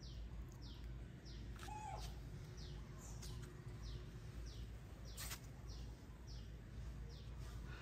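A bird calling over and over: short, high notes that fall in pitch, evenly about twice a second. A single sharp click comes about five seconds in.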